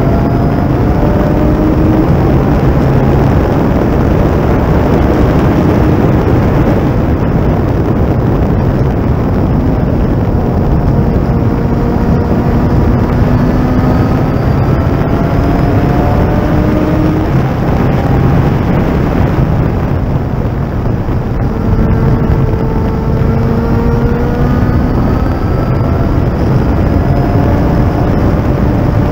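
Thunder Roadster race car's engine at racing speed, heard onboard: its pitch climbs repeatedly as it pulls through the gears and drops back between climbs, over heavy wind and road noise.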